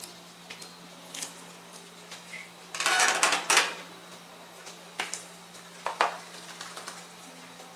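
Metal spatulas scraping and tapping on a cold plate while making rolled ice cream: scattered clicks and taps, and a longer burst of scraping about three seconds in. A steady low hum runs underneath.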